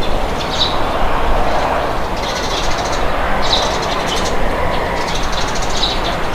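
Steady rushing wind with birds chirping over it in short, high calls that come every second or so.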